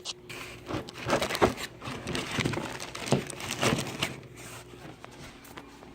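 Packaging being handled: irregular crinkling and rustling of plastic and paper with a few sharp knocks, busiest in the first four seconds and then dying down.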